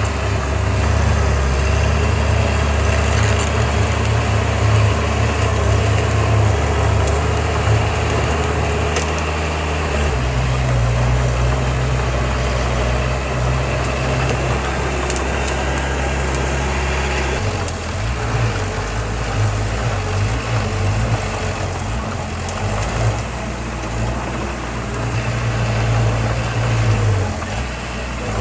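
Heavy diesel earthmoving machinery running: a loud, low engine drone that steps to a new pitch about ten seconds in and again a little past halfway, turning more uneven after that.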